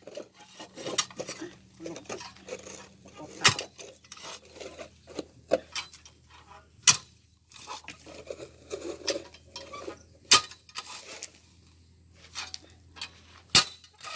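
Hand-operated clamshell post-hole digger being driven down into packed soil: a sharp strike about every three and a half seconds, four in all, with smaller scrapes and knocks of the blades and dirt between strikes.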